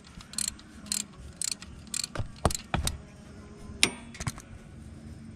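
Ratchet wrench with a 3/4-inch socket clicking as it loosens an engine oil drain plug: sharp clicks about two a second for the first few seconds, then a few more near the end.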